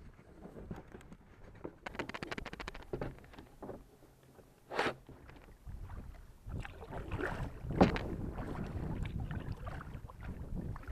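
Winner Volador Angler kayak being launched and paddled: irregular splashes and knocks of water and paddle against the hull, with wind rumbling on the microphone.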